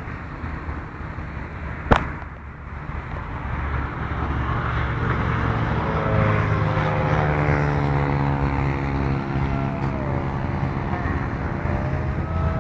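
Radio-controlled model airplane's motor running, its whine building from about four seconds in and then holding steady, with wind rumbling on the microphone. A single sharp knock about two seconds in.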